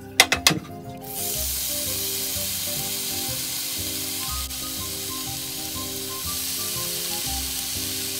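Raw bacon sizzling on a hot grill pan: a few clicks, then a steady frying hiss that starts about a second in.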